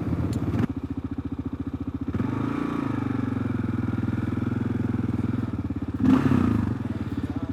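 2022 Kawasaki KLR650's big single-cylinder engine idling through a Yoshimura RS-2 exhaust, a steady, rapid, even thump.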